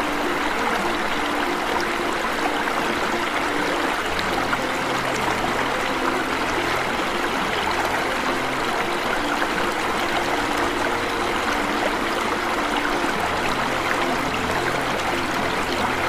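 Water falling and splashing over a small waterfall into a pool, a steady even rush.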